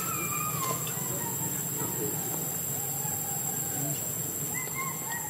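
Insects droning steadily and high-pitched, with a few thin gliding squeaks: one at the start and several near the end.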